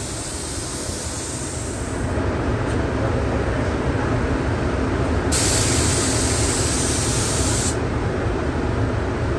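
Gravity-feed air spray gun hissing as self-etching primer is sprayed in passes, the hiss starting and stopping with the trigger; it is strongest from about five seconds in and drops off sharply a little before the end. A steady low rumble runs underneath.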